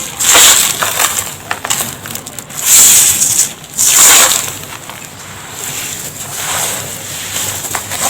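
Dry red dust pouring and crumbling in a tub, a gritty hissing crunch that swells and fades, loudest about half a second, three seconds and four seconds in.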